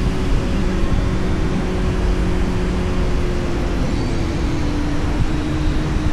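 Kawasaki Z900's inline-four engine running as the motorcycle is ridden, a steady engine note whose pitch eases slowly down over a few seconds.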